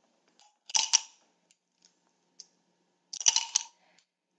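Metal spoon scooping ice cubes off cling wrap stretched over a glass bowl: two short bursts of scraping and clinking, about a second in and again about three seconds in, with a few faint clicks between.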